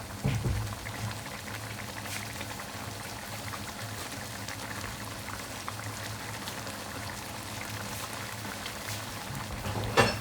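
Thick tomato-ketchup sauce bubbling in a pan over high heat, a steady patter of small bubbling pops, with a low steady hum beneath.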